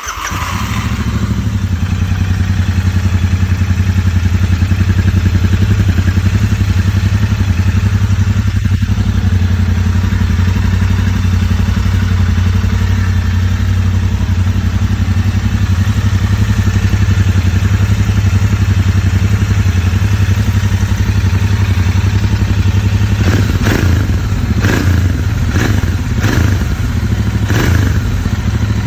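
Royal Enfield Interceptor 650 parallel-twin engine on the stock exhaust, starting and settling into a steady idle. A few short, sharper bursts come in near the end.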